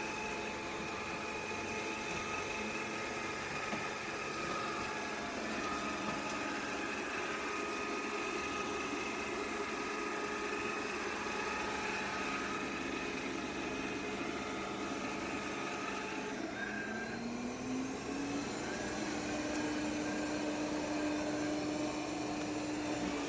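Yeedi M12 Pro+ robot vacuum-mop system's motor running with a steady hum; about two-thirds of the way through, a tone rises in pitch and then holds level.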